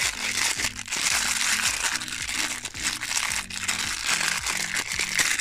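Clear plastic coin bag crinkling steadily as it is handled, with background music playing underneath.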